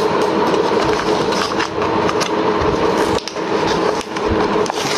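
Plastic blister and card packaging of a modelling clay set being handled and bent open, with irregular crinkles and taps, over a steady mechanical hum.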